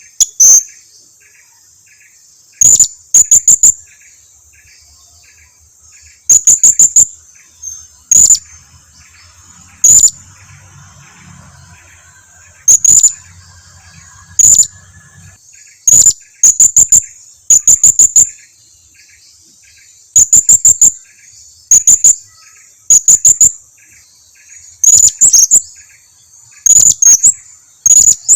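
Blue-crowned hanging parrot (serindit) calling: sharp, very high-pitched notes in quick clusters of two to five, repeated every second or two, loud enough to distort. It is a lure call played to make other serindits answer.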